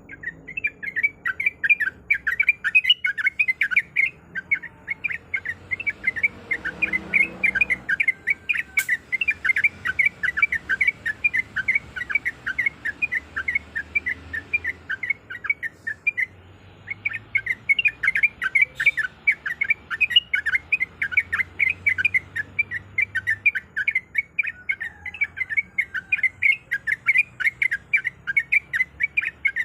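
Yellow-vented bulbul (trucuk) singing a long, fast rolling run of sweeping chattering notes, several a second, with one brief pause about halfway through.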